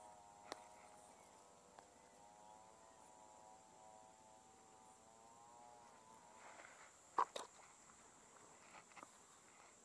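Quiet handling of a cast net as fish are picked from it: a few soft clicks, then a louder double knock about seven seconds in and two smaller ones near the end, as the net and its chain sinkers are shifted. Underneath, a faint wavering drone of several tones fades out about six seconds in.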